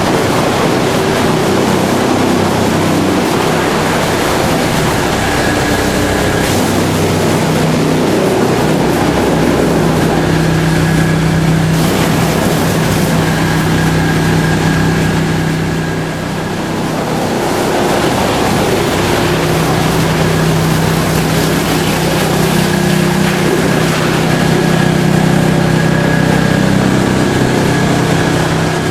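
Drum wood chipper running loudly: a steady machine hum under a dense noisy rush, with a brief dip in level about halfway through.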